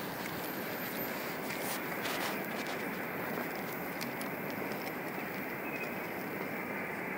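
Distant train approaching along the railway line: a steady, even noise, with a few faint clicks scattered through it.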